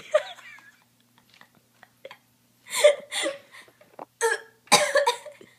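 A girl hiccuping loudly several times, each hiccup a short burst with her voice in it.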